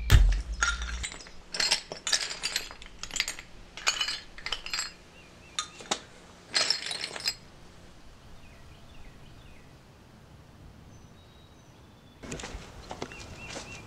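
Glass pieces clinking and breaking in a quick, uneven series of sharp strikes for the first half, ending with a drum beat in the first second. Then a quiet stretch with faint bird chirps, and outdoor ambience rising near the end.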